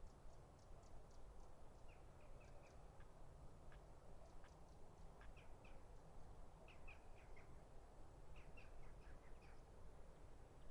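Near silence with faint, scattered bird chirps in small clusters over a low background rumble.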